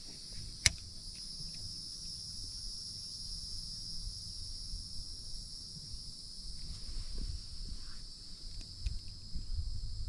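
Steady high-pitched insect chorus, with one sharp click less than a second in and a low rumble underneath.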